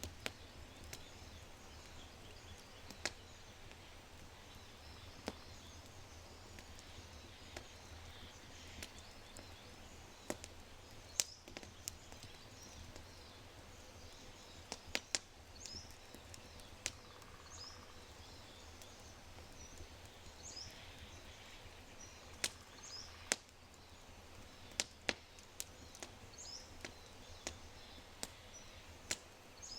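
Oak fire crackling in a brick fireplace, with irregular sharp pops a second or two apart. From about halfway through, a bird adds short high chirps.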